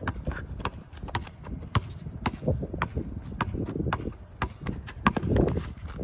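A basketball being dribbled, bouncing on a hard court with sharp, even bounces about twice a second.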